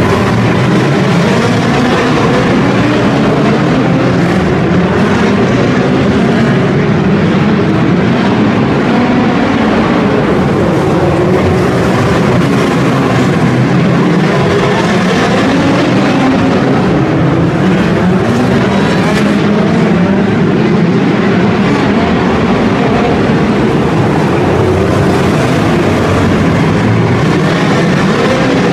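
Several midget race cars' four-cylinder racing engines running hard around a dirt oval, loud and unbroken, their pitch rising and falling over and over as the cars accelerate down the straights and back off for the turns.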